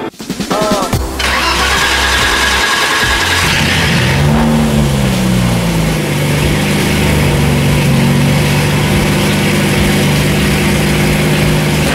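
BMW E30 engine cranked by the starter and catching about a second in, revved up and down briefly a few seconds later, then settling into a steady idle.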